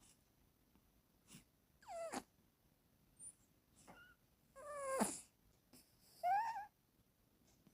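A sleeping cat snoring in short, pitched, whining snores, with silence between them. There are a few faint ones and three louder ones, about two, five and six and a half seconds in.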